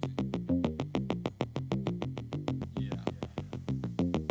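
Background electronic music: a fast steady drum-machine beat over a stepping synthesizer bass line.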